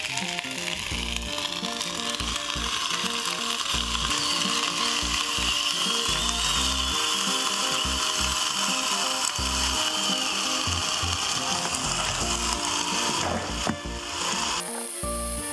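Crab sticks sizzling between the hot plates of a closed electric waffle maker: a steady hiss with crackling that swells after about a second. Background music plays under it.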